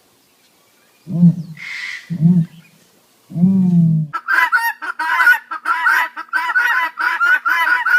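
Domestic fowl calling: three separate low, honking calls about a second apart, then from about four seconds in a rapid, continuous run of higher-pitched calls.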